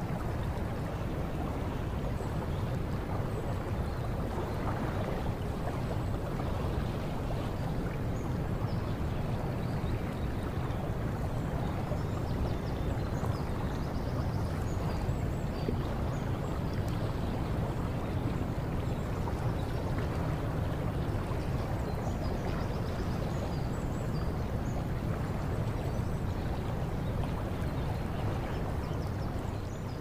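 Water running steadily without pause, the sound of a stream or waterfall.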